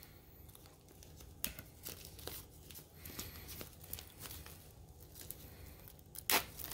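Clear plastic shrink-wrap being peeled and torn off a Blu-ray steelbook case: faint crinkling and small crackles, then a sharper, louder tear a little after six seconds in.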